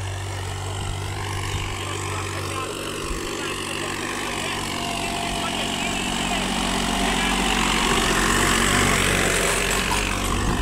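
Massey Ferguson 8055 tractor's diesel engine running steadily under load as it pulls a 10x10 disc harrow through the soil, growing louder as it draws near.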